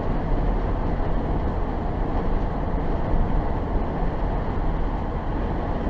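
Steady road and engine noise inside a moving car's cabin: a low rumble with tyre hiss that does not change.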